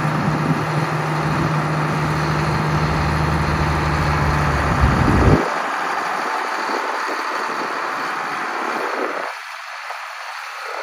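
Allis-Chalmers 7050 tractor's six-cylinder diesel engine running steadily as the tractor drives slowly. A strong low engine note drops away suddenly about five seconds in, leaving a fainter steady running sound.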